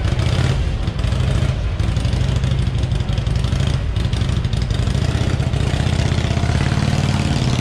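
Vintage motorcycle engine running with a steady pulsing beat as the bike pulls away, its pitch rising over the last couple of seconds.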